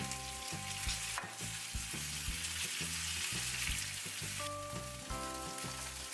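Floured mackerel pieces sizzling steadily as they fry in hot oil in a pan.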